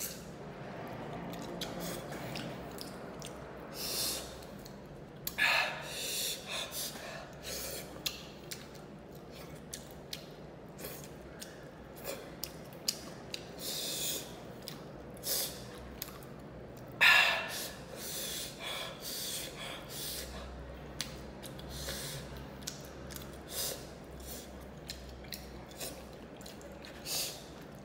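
Close-up eating sounds from spicy fried fish eaten by hand: wet lip smacks, sucking at the fish and fingers, and small clicks, with sharp hissing breaths drawn in through mouth and nose now and then from the chili heat.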